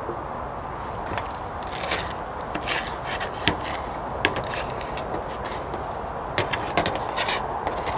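Scattered light clicks and scrapes, irregular and a few seconds apart: hands picking fresh coriander leaves and handling them over the cooking pan.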